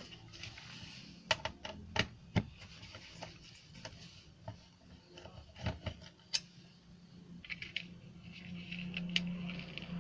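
Screwdriver and hand-handling clicks and knocks as the plastic housing of a motorcycle's digital speedometer is worked open, with scattered sharp clicks and some rubbing. A low steady hum grows in over the last couple of seconds.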